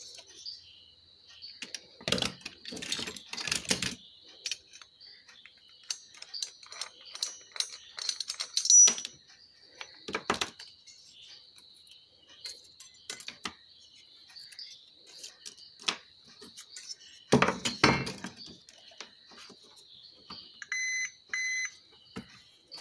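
Scattered knocks and clicks as an amplifier board and tools are handled on a workbench. Near the end, a digital multimeter's continuity buzzer beeps in short pulses as its probes touch a removed power transistor, which the technician finds to be fully shorted.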